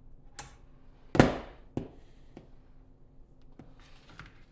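Clicks and knocks of the drain inspection camera's metal head-and-spring assembly being handled as it is unscrewed off the push cable, with one loud clunk about a second in.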